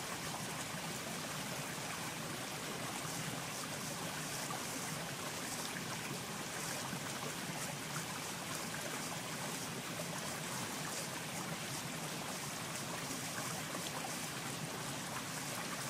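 Flowing water: a steady, even rush with nothing standing out from it.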